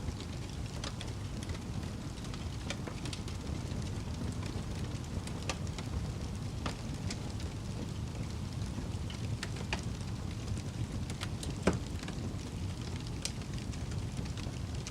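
Fire burning with a steady low rumble and scattered sharp crackles and pops, one louder pop about three quarters of the way through.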